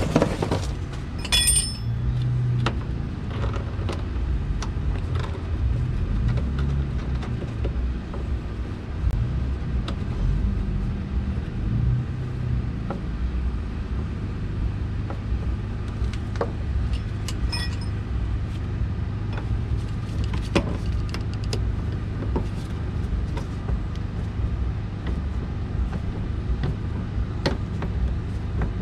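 Scattered clicks and small metallic clinks of a hand tool screwing in an expanding fastener that spreads open behind a panel, over a steady low rumble.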